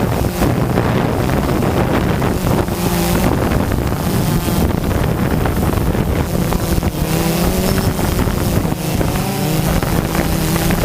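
DJI Phantom 2 quadcopter's motors and propellers buzzing steadily, their pitch wavering up and down as the throttle changes, with wind rushing over the microphone.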